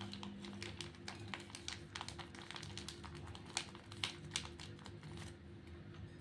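Foil pouch of wet cat food being squeezed and crinkled as the food drops into a bowl: a run of small irregular clicks and crackles over a faint steady hum.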